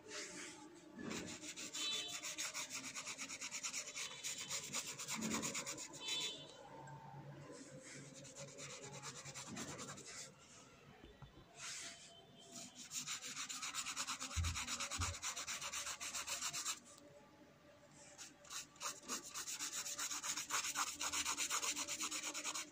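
Paintbrush scrubbing watercolour back and forth on sketchbook paper: rapid scratchy rubbing in several spells with short pauses between them.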